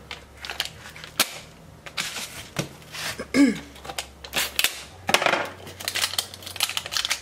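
Plastic shrink-wrap crinkling and crackling as it is peeled off a cardboard knife box. Sharp clicks and taps come from handling the box, with a hard click a little over a second in and thicker crackling near the end.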